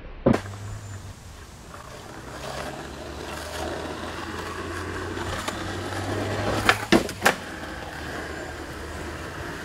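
Skateboard on an asphalt driveway: a sharp clack of the board about a third of a second in, then the wheels rolling, growing louder, and three sharp board clacks in quick succession about seven seconds in, before the rolling goes on more quietly.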